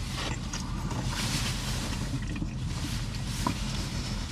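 Steady low hum in a parked car's cabin, with soft rustling of a paper takeout bag as a burger is handled.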